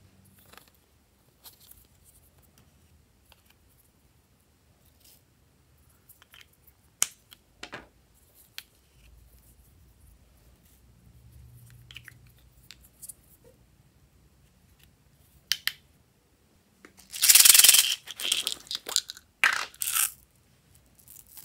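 Scattered light clicks and taps of small plastic toys being handled and pulled apart, then about 17 s in a loud rattle of a handful of small gold beads poured and jostled in a hand, with a few shorter clinking rattles after it.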